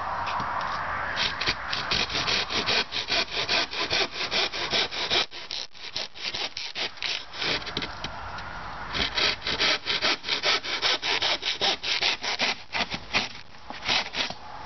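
Hand-held saw blade sawing through timber in quick back-and-forth rasping strokes, easing off for a few seconds in the middle before picking up again.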